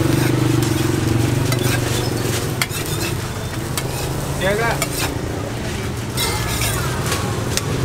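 Metal spatula and blade clicking and scraping on a flat-top steel griddle as an egg wrap is folded around a burger, over a light sizzle. The metal gives a short squeal on the plate about halfway through and another near the end.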